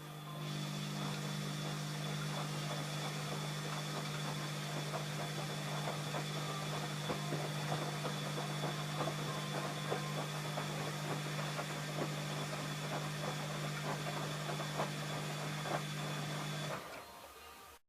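ELIN A 100 E washing machine's motor running with a steady low hum and a busy crackling noise over it, starting about half a second in and cutting off abruptly near the end.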